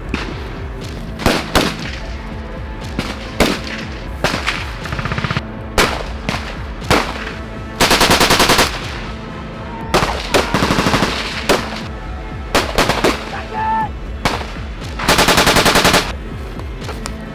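Small-arms fire during infantry firing practice: scattered single rifle shots and short bursts, with two long rapid automatic bursts about eight and fifteen seconds in.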